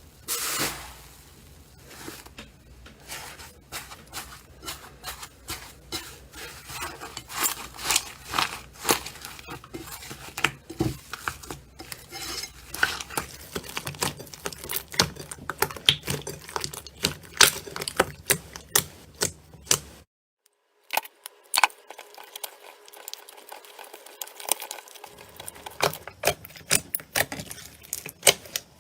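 Slime being squeezed, stretched and poked by hand, making many small sticky clicks and pops at an irregular pace. They stop briefly about twenty seconds in, then carry on.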